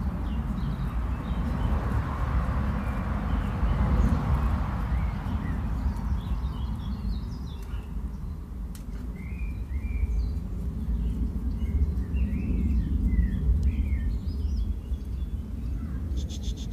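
Small birds chirping in short, scattered calls, most of them in the middle and later part, over a steady low outdoor rumble.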